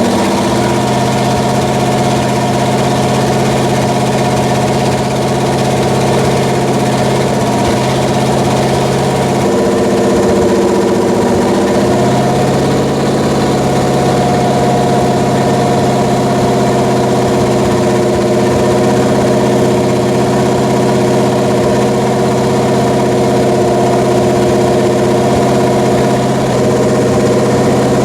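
Pontiac 400 V8 running steadily at a fast idle of about 2,000 rpm on an engine stand during flat-tappet camshaft break-in, its note shifting briefly about ten seconds in.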